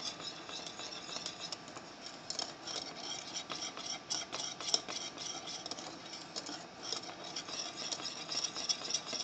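Wire whisk stirring a thickening cream sauce in a metal saucepan, its wires ticking and scraping against the pan in a rapid, irregular run of light clicks.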